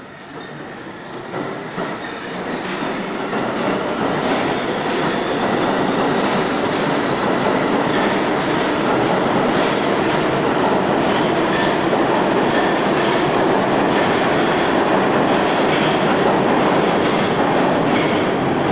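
R62A subway train coming along the platform track. Its wheel-on-rail noise builds over the first few seconds, then runs loud and steady, with wheels clicking over the rail joints.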